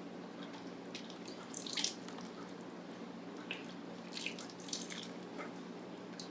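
Soup being ladled into a bowl: short splashes and drips of liquid with light clinks, in a couple of clusters, about one and a half seconds in and again around four to five seconds in. A steady low hum runs beneath.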